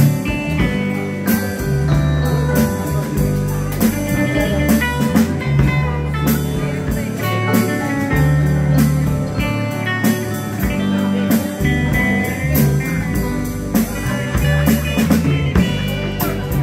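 Live rock band playing a number: electric guitars over a drum kit keeping a steady beat.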